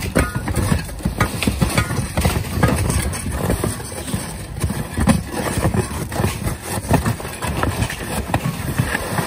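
Roofing tear-off shovels scraping and prying old asphalt shingles off a wooden roof deck, in a steady run of irregular scrapes, knocks and rattles as the torn shingles clatter loose.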